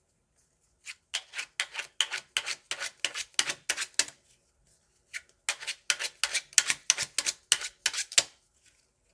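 Plastic hwatu cards clacking sharply against each other, about four clacks a second, in two quick runs with a pause of about a second between them.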